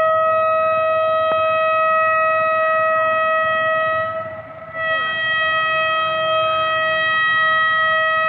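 Horn of an HBU-20 diesel locomotive on an approaching train, sounding two long, steady multi-tone blasts; the first breaks off about four seconds in and the second starts about half a second later.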